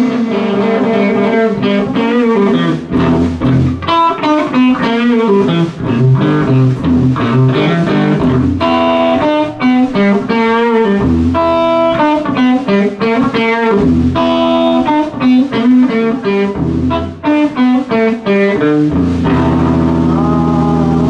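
Live rock band playing: an electric guitar runs through a busy line of quick notes over bass, settling into a held chord near the end.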